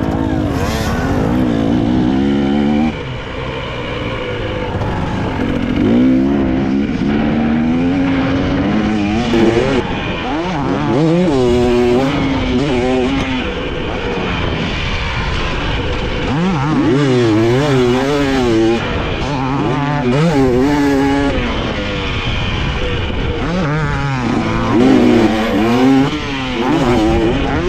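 Dirt bike engine on a motocross track, revving up and down over and over as the throttle opens and closes through gears, jumps and corners.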